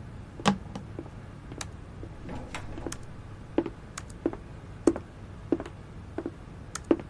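Footsteps of hard-soled shoes on a hard office floor: a string of short, sharp taps at an uneven walking pace, roughly two a second.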